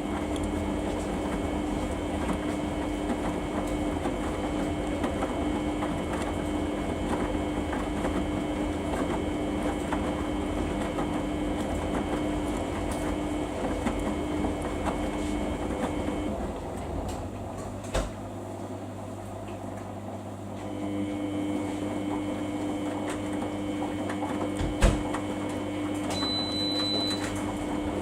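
Samsung washing machine running a Daily 40 wash, its drum motor whining steadily as the drum turns. The motor stops about 16 seconds in, leaving a low hum with a couple of sharp clicks, then starts again about 21 seconds in.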